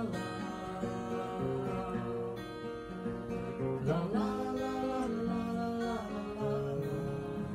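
Acoustic guitar strummed in a steady chord accompaniment, with a man's voice singing along without clear words.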